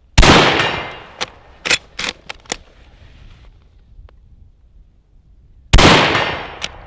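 Two rifle shots from a Type 38 Arisaka bolt-action rifle firing 6.5 mm ammunition, about five and a half seconds apart, each trailing off over about a second. After each shot comes a quick run of sharp metallic clicks as the bolt is worked to chamber the next round.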